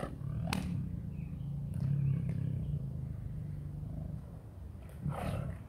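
Tiger growling low and steadily while eating its food, with a sharp snap about half a second in.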